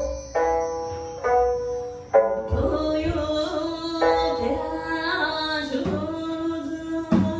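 Sanshin, the Okinawan three-stringed lute, plucked in a slow phrase of separate ringing notes; about two and a half seconds in a woman's voice comes in, singing a Miyako folk song over it with sliding ornaments.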